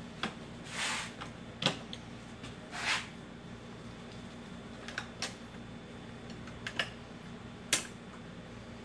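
Scattered metallic clicks and clinks, with two short scraping sounds early on, as a shift selector is worked back into a Honda J-series manual transmission case and lined up.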